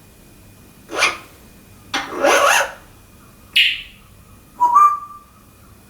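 African grey parrot making four short, rough sound-effect calls about a second apart. The last one ends in a brief whistled note.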